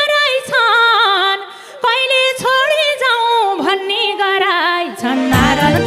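A woman sings a slow Nepali dohori folk phrase with bending, ornamented notes, almost unaccompanied. Near the end the band comes in with a steady beat.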